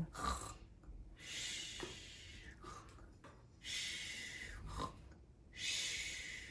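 A woman acting out snoring with slow, breathy hissing exhales, three of them about two seconds apart, each starting sharply and fading away.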